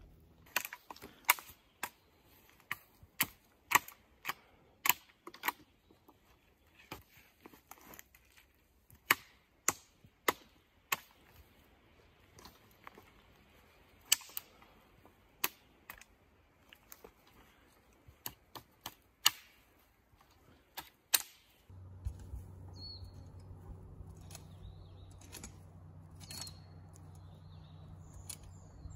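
Wood being chopped with an axe or hatchet: sharp, irregular strikes, about one or two a second. The strikes stop about three quarters in and give way to a steady low hum with a few faint high chirps.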